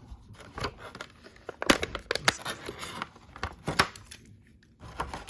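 Plastic blister packaging crinkling and crackling as it is pulled open, in irregular snaps, the sharpest about a second and a half, two seconds and nearly four seconds in.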